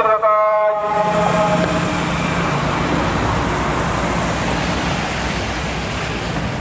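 Police vehicles driving slowly past at close range: a steady engine hum and road noise. A loudspeaker announcement from the vehicles trails off about a second in.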